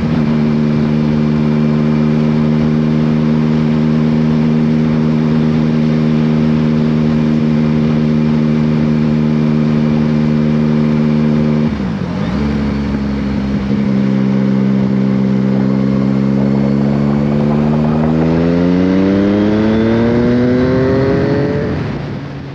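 Yamaha Tracer 900GT's three-cylinder engine through an Akrapovic exhaust, running at a steady pitch under way. About twelve seconds in the note dips and breaks briefly at a gear change, then holds again before rising steadily as the bike accelerates, fading out near the end.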